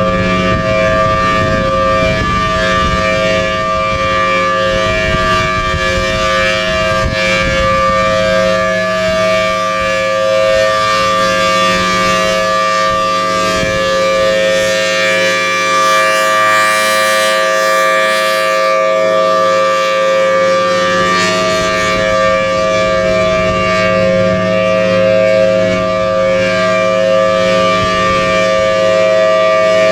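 Federal Signal Thunderbolt 1000T outdoor warning siren sounding its steady alert tone for a tornado drill test. It holds a constant pitch, and the tone swells and fades every few seconds as the rotating head sweeps past.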